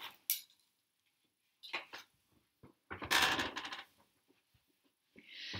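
A few short clicks and a soft handling rustle, with a brief soft hissing sound near the end.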